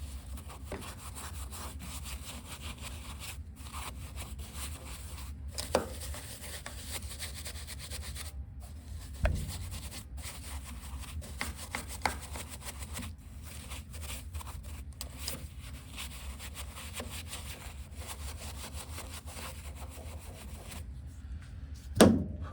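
A brush scrubbing dirt off the inside walls of a car's fuel tank: a steady rasping rub, broken by a few sharp knocks, the loudest near the end.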